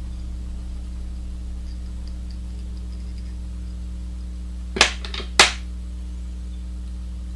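Steady low electrical hum, with two sharp clicks about half a second apart a little past halfway, as the small metal hackle pliers are handled and taken off the fly.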